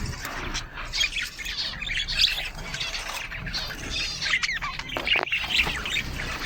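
A flock of small cage birds chirping and squawking all at once, in many short, overlapping high calls.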